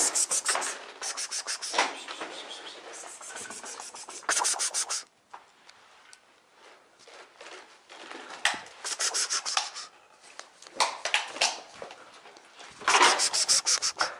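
Bursts of rapid scraping and rubbing, with quiet gaps between them, several times over.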